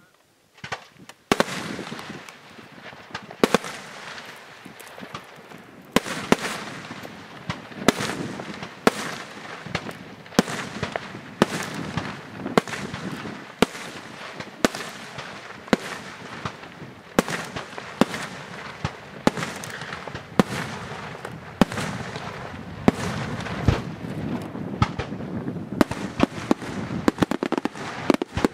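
Aerial firework shells bursting in a string of sharp bangs, roughly one or two a second, starting about a second in and coming faster near the end.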